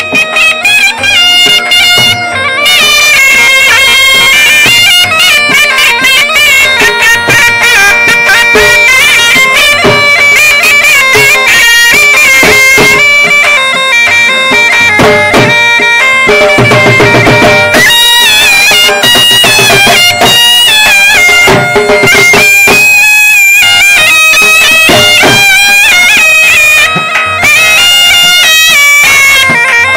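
Saraiki folk dance music: a shrill, reedy wind instrument plays the melody over drum beats, loud throughout.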